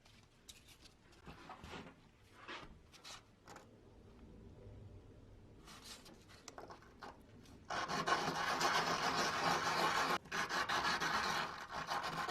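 A few light handling clicks and taps, then from about eight seconds in a loud, continuous rasping as an abrasive is rubbed by hand over a rusty fan part to take off rust, breaking off briefly about ten seconds in.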